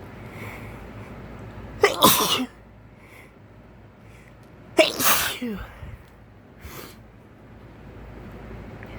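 A man sneezing twice, about three seconds apart, each a sudden loud burst; the sneezes are brought on by a cotton swab (Q-tip) poked in the nose.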